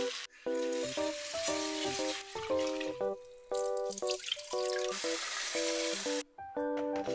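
Background music with a melody of short notes, over water running and splashing as rice is rinsed in a rice cooker's inner pot under a kitchen tap; the water noise stops about six seconds in.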